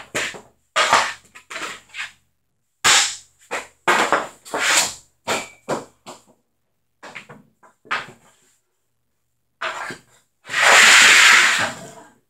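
A CCM Heat street hockey stick repeatedly clacks against pucks and the concrete floor as shots are taken, with pucks hitting the net and wall; a dozen or so sharp impacts, and near the end a longer rattling clatter lasting about a second and a half.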